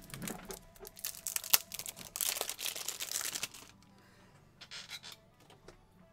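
Trading-card packaging crinkling and rustling as it is handled, most intense between about one and three and a half seconds in, with a sharp click about a second and a half in.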